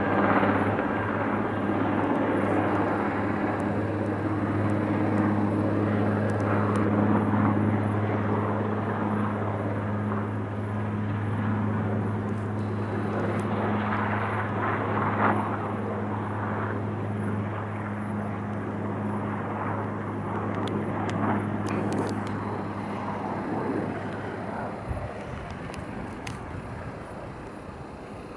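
Firefighting helicopter in flight, a steady engine and rotor drone that fades away from about 25 seconds in.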